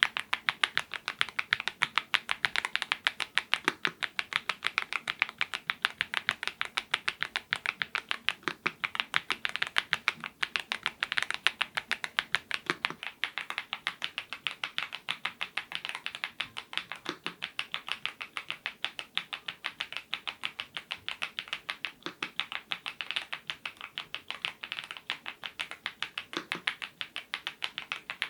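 Continuous typing on a YUNZII IF99 full-size mechanical keyboard with lubed Gateron Zero switches, about four keystrokes a second, with a deeper thump every four or five seconds.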